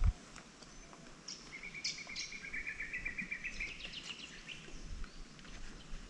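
A bird calling: a fast trill of short repeated notes starting about a second and a half in, stepping higher near the end, with scattered short chirps around it.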